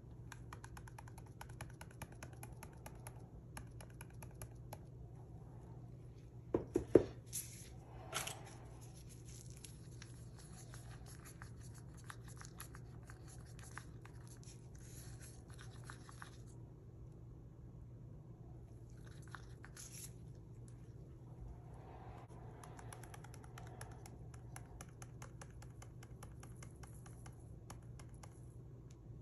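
Faint scraping and clicking of a wooden craft stick stirring chunky glitter into epoxy in a small plastic cup, with a few louder knocks about seven seconds in.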